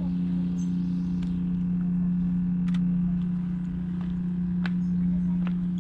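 A steady mechanical hum at one constant low pitch, like an engine or motor running, with a few faint clicks over it.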